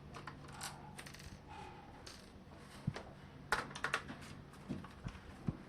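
Light clicks and taps of a screwdriver and small screws being worked out of a laptop's plastic case, with a quick cluster of sharp clicks about three and a half seconds in. A steady low hum runs underneath.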